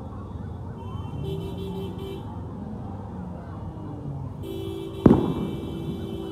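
A single sharp, loud bang about five seconds in, over steady outdoor crowd and traffic noise. A horn sounds about four short beeps near the start and one long blast near the end.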